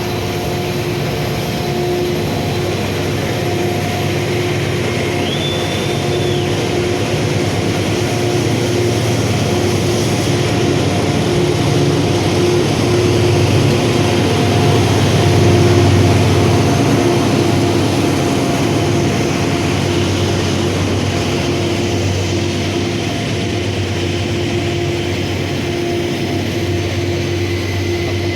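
A train passing: a steady low rumble that grows to its loudest about halfway through and then eases off slightly, with a steady tone held over it throughout.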